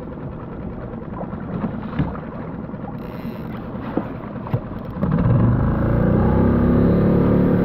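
Small skiff's outboard motor running slowly through chop, with a few light clicks. About five seconds in it throttles up: the pitch rises briefly, then holds louder and steady.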